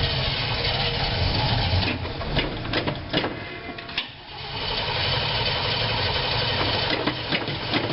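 A 366 cubic-inch big-block V8 in a 1986 GMC Blue Bird school bus cranking on the starter without catching, with a brief break about four seconds in before the cranking resumes. It won't fire because the Holley four-barrel's accelerator pump isn't squirting fuel, which the owner puts down to a blocked passage.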